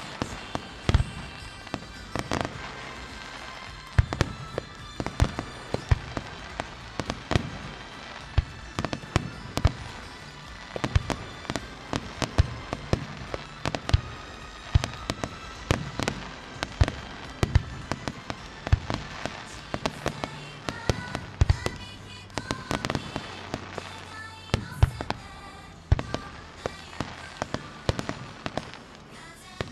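Aerial firework shells bursting in a rapid, irregular run of sharp bangs, often several a second.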